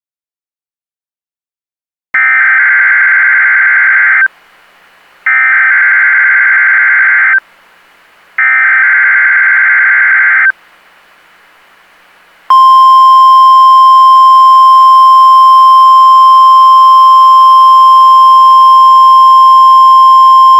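NOAA Weather Radio Required Weekly Test alert received on a scanner: three bursts of SAME digital header data tones, each about two seconds long with a second's gap between them, then a loud, steady 1050 Hz weather radio warning alarm tone that starts a couple of seconds later and holds.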